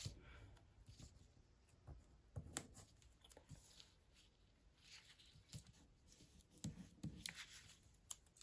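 Faint rustling and light taps of hands sliding and pressing on paper planner pages, in short scattered bursts.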